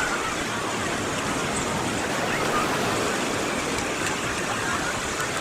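Steady wash of surf from waves on the Sea of Azov shore.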